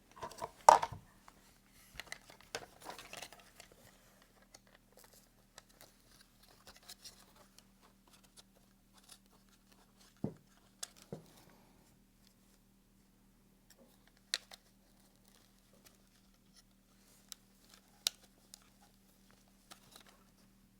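Hand-tool work on a Safariland holster: small metal clicks and rattles of a wrench and small bolts as a protruding bolt is swapped for a shorter one. The loudest click comes right at the start, with brief handling rustles over the next few seconds and a few isolated sharp ticks later.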